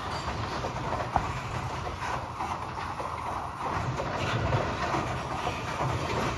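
Freight train of tank cars rolling across a steel truss bridge: a steady rumble of wheels on rail, with scattered clicks and clanks, one sharp one about a second in.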